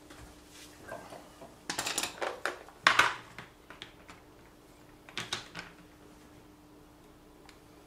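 Clicks and knocks of hard objects being handled: a quick flurry about two seconds in ending in the loudest knock, then a brief rattle a little after five seconds.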